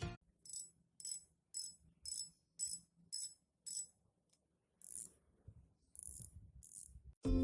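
Small mechanical rattling from a spinning fishing reel being handled: short, faint, high-pitched rattles about twice a second, then a few irregular ones, with a brief louder sound near the end.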